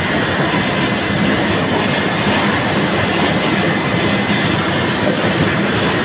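Screw oil press (expeller) running steadily under load while pressing mustard seed: its electric motor and pressing screw make a loud, even mechanical din with a faint high whine.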